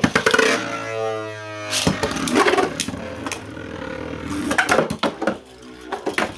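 Beyblades spinning and clashing in a stadium: a whine falling away over the first two seconds, then a run of sharp clicks and knocks as the tops collide, over a steady low hum.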